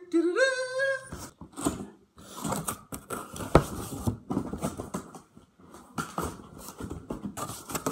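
Cardboard packaging being handled and opened: irregular rustling, scraping and knocks of cardboard flaps and packing. A short rising whine sounds in the first second.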